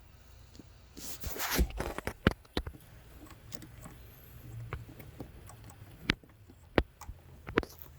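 Handling noise: a brief rustling scrape about a second in, then a scatter of sharp clicks and knocks.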